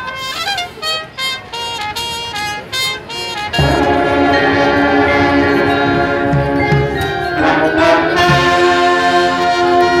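High school marching band playing: short detached notes for the first few seconds, then, about three and a half seconds in, the full band comes in loud with held brass chords, sousaphones and saxophones among them.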